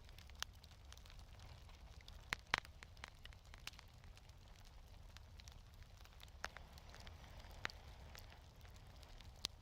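Wood fire in a fireplace crackling quietly, with scattered sharp pops every second or so, the loudest about two and a half seconds in, over a low steady rumble.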